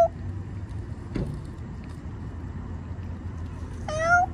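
A feral cat meows once about four seconds in, a short call rising slightly in pitch, with the tail end of an earlier meow just at the start. A steady low rumble runs underneath.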